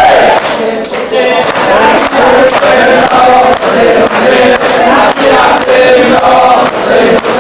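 A crowd of men and women chanting together in unison, led by a man's voice, with sharp rhythmic beats about twice a second keeping time.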